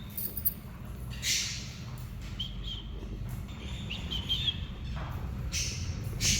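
A small pet parrot chirping a few short high notes, with a couple of brief harsher noisy bursts, over a steady low hum.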